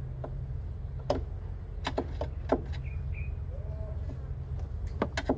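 Flat screwdriver clicking and knocking against the plastic fuel filter housing as it is pried upward from underneath: several sharp clicks, some in quick pairs, over a steady low hum. A short chirp sounds about three seconds in.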